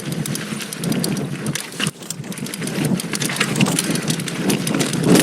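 Full-suspension mountain bike (2019 Giant Stance 2) descending a steep, loose rocky trail. The tyres crunch over dirt and stones, and the bike gives off a dense, continuous patter of small knocks and rattles.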